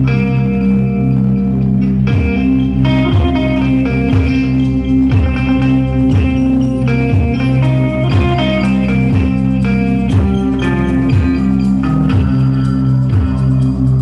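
An electric guitar played live over held low drone notes. From about two seconds in, a low swooping pulse repeats about every two-thirds of a second.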